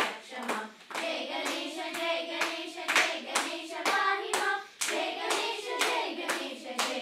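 A group of children singing together while clapping their hands in a steady beat, a little under three claps a second.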